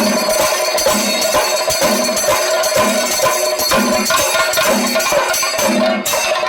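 Music with percussion and jingling bells or cymbals over a held tone, with a steady low beat about once a second.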